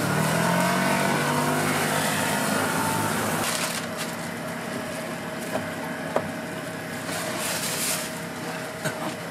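Butter and bread sizzling on a hot flat-top griddle as toast slices are laid down and turned by hand, with a low hum in the first few seconds and a couple of light clicks midway.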